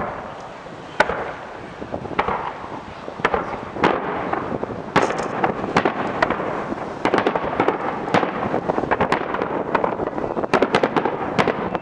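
Aerial fireworks shells bursting: a few separate bangs at first, then bangs coming thick and fast from about five seconds in.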